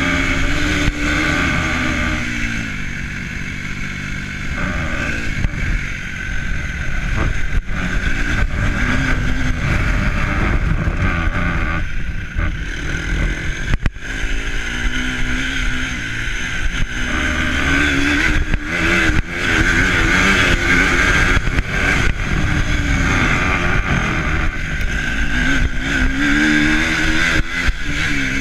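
Vehicle engine running under way, its pitch rising and falling over and over as it speeds up and eases off, over a heavy low rumble of wind on the microphone.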